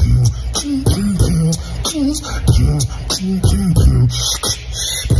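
Human beatboxing: a steady hip-hop groove of mouth-made kick, snare and hi-hat sounds, with pitched bass tones sliding up and down beneath the beat.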